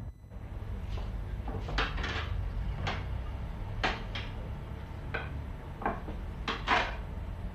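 Scattered clinks and knocks of dishes, glasses and cutlery being cleared from a café table, over a low steady hum.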